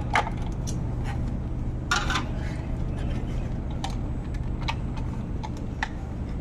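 Light plastic clicks and clinks of a removable refrigerator ice tray and ice-maker parts being handled, a few sharp taps scattered through, the loudest about two seconds in, over a steady low background hum.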